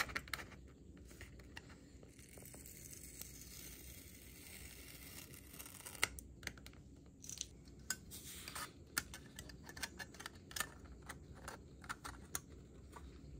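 Masking tape being peeled off a painted clear plastic model-car window with tweezers: faint crackly peeling, with small sharp clicks and taps that come more often in the second half.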